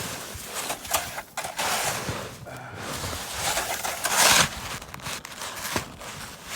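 A snow shovel scraping and scooping snow in irregular swishes, the loudest about four seconds in.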